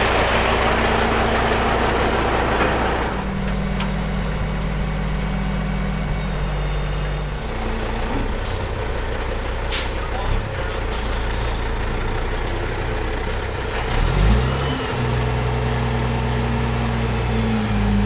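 Heavy vehicle engine running at field equipment used for spreading biosolids. It opens with a loud hissing rush lasting about three seconds, then settles into a steady low engine hum, and about fourteen seconds in the engine revs up and holds at a higher pitch.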